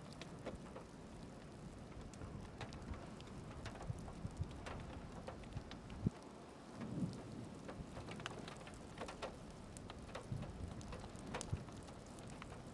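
Steady rain, with scattered drops ticking sharply close by and one harder knock about halfway through.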